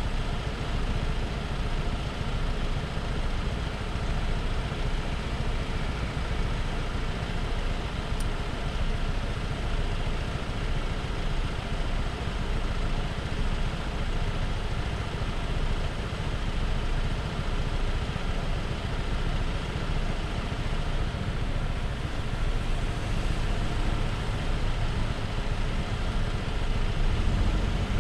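Honda PCX scooter's single-cylinder engine idling steadily, then starting to rev up near the end as it pulls away.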